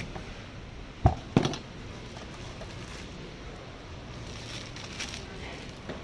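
A large kitchen knife knocks twice, sharply, on a cutting board a little after a second in, as a pineapple is chopped or the knife is set down. Faint plastic-bag rustling follows.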